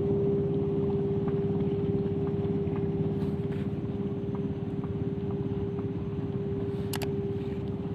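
Engine running steadily: a constant hum over a fast, even low throb, with a couple of faint clicks.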